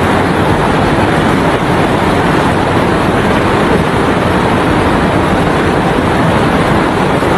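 Heavy hail and rain falling in a storm, a loud, steady, dense noise with no single impacts standing out.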